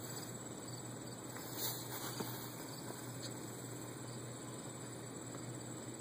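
Quiet steady background hiss with a constant low hum and a couple of faint clicks; no shot is heard.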